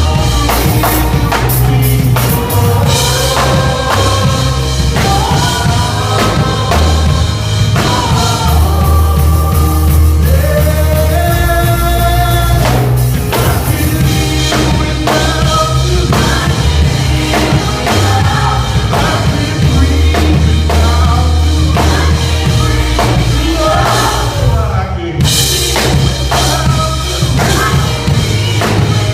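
Live gospel band with drum kit, bass and singers playing a song, loud and continuous.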